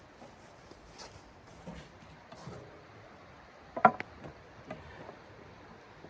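A few soft knocks and clicks of something being handled, with one sharp knock about four seconds in that rings briefly.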